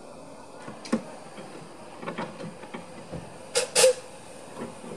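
Narrow-gauge steam locomotives moving slowly along the track, with irregular clanks and knocks and two loud sharp bursts close together a little over halfway through.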